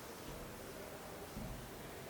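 Faint ambience of a small city square: a steady low background noise, with a brief low rumble about one and a half seconds in.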